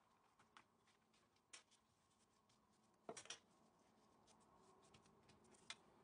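Faint, scattered clicks and taps of a knife and metal ruler against the worktop as a stack of phyllo sheets is cut. A brief cluster of taps about three seconds in is the loudest.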